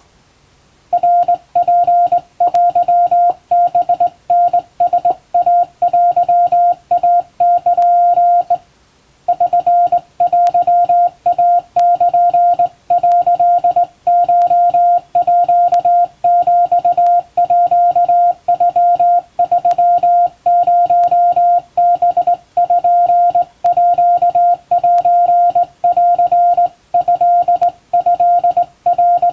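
Japanese wabun Morse code sent by hand on a straight key: a single steady beep keyed on and off in short dots and longer dashes, starting about a second in, with one brief pause about a third of the way through.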